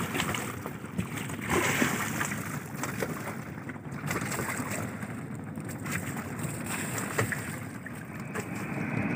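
Wind on the microphone and sea noise aboard a small fishing boat, with a few scattered knocks.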